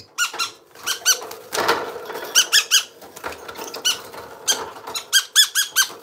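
Parrot giving clusters of short, rapid, high squeaky calls, three to five at a time, several times over.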